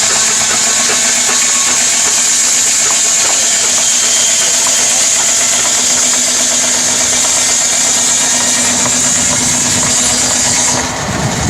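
Machinery engine running steadily with a fine rapid rattle and a strong hiss, the sound dropping and a lower rumble coming in near the end.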